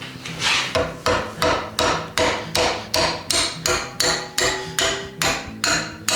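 Hand hammer striking steel in a steady rhythm, about fifteen blows at two to three a second, each with a short metallic ring: driving a forged hinge's pin or knuckle together into a tight fit.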